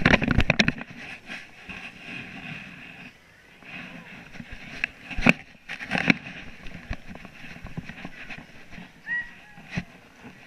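Handling noise from a GoPro strapped to a child's chest: a burst of rubbing and knocks at the start, then a few scattered sharp knocks, over background chatter from the people around.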